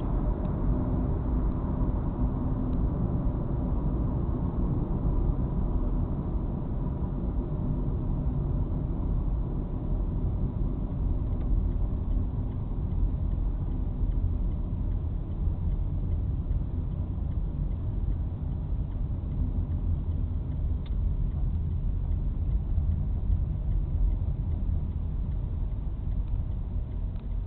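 Volkswagen Polo sedan running under way, a steady low engine and road rumble with no clear change in pitch.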